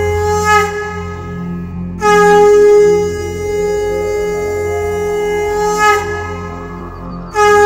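Background music: a wind instrument plays long held notes over a low steady drone, with a new loud note starting about two seconds in and again near the end, each phrase ending with a slight dip in pitch.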